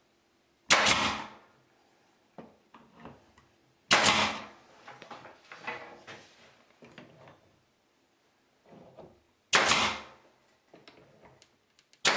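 Pneumatic brad nailer firing brads through thin cedar planking into the wall: four sharp shots a few seconds apart, the last at the very end, with light handling noises between.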